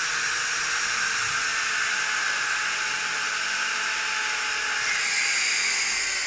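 Electric drill running steadily as it bores into the body panel of a horsebox, a continuous motor whine and bit noise.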